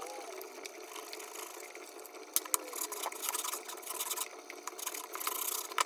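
Hand scraper scraping heat-softened glue and paint off an old wooden wagon slat in short, uneven strokes, over a faint steady hum.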